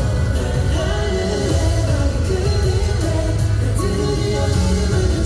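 Live K-pop concert performance heard from the audience: male voices singing over a loud, bass-heavy backing track.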